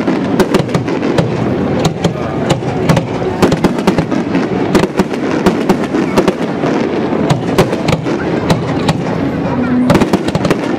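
Aerial firework shells bursting in quick succession: many sharp, irregular bangs and crackles one after another over a continuous rumble of the barrage.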